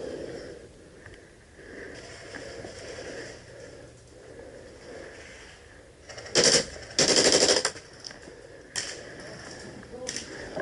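Airsoft electric gun firing two full-auto bursts about six seconds in: a short one, then right after it a longer one, each a fast rattle of shots.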